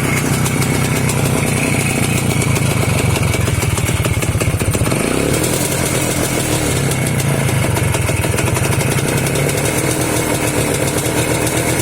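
Voskhod 3M motorcycle's single-cylinder two-stroke engine running steadily after a long lay-up, with one brief rev about five seconds in.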